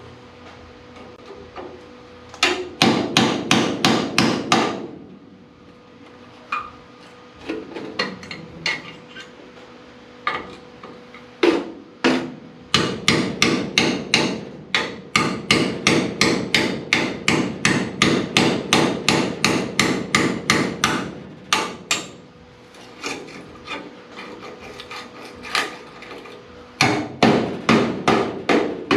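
Hand hammer striking metal in quick runs of blows, about four a second, in three bouts with a few single knocks between, working an old door hinge loose from a car body.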